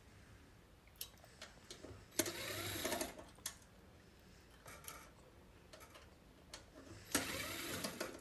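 A power driver with a Torx bit whines in two short bursts, its pitch bending as it backs out the screws holding a microwave magnetron. Light clicks and taps of metal parts fall between the bursts.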